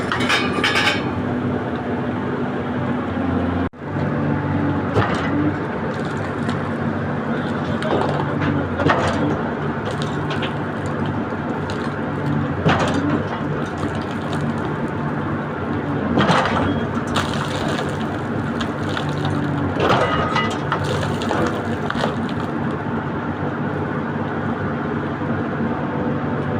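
Backhoe diesel engine running steadily under load, with several sharp cracks and knocks of material breaking or being struck as the machine works.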